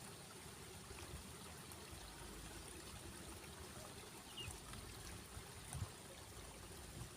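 Faint steady sound of running water, a stream trickling.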